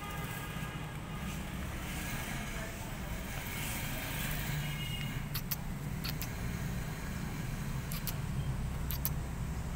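Steady low engine-like hum of road traffic, with a few sharp clicks in the second half.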